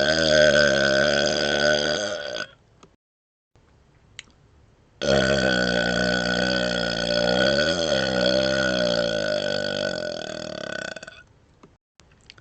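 A man burping on command: one burp of about two seconds, then after a pause a long burp of about six seconds that wavers up and down in pitch, made while he wiggles his tongue outside his mouth.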